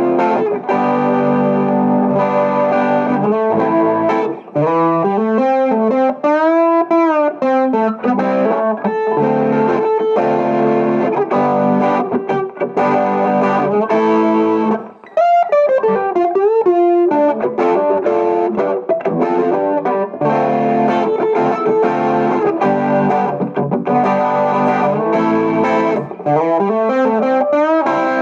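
Donner headless electric travel guitar played through distortion: sustained chords and riffs, with notes bent up and back down twice.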